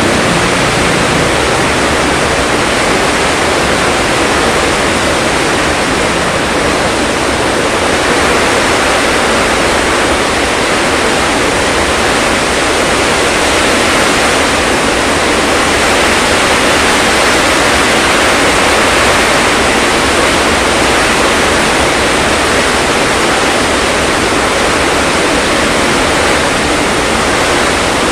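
Heavy downpour: rain pouring down in a steady, loud hiss.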